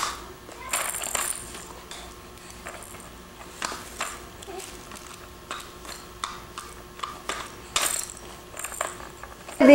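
Light plastic clicks and rattles from a baby's stroller toy bar as the toys are handled, a handful of scattered taps over a faint steady hum.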